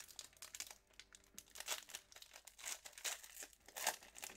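Foil wrapper of a Contenders Draft football card pack being torn open and crinkled by hand, in a series of irregular crackles.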